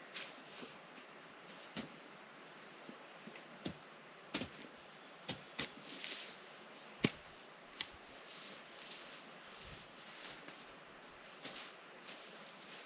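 Insects chirring steadily in one high, unbroken tone, with irregular soft knocks and clicks every second or so, the loudest about seven seconds in.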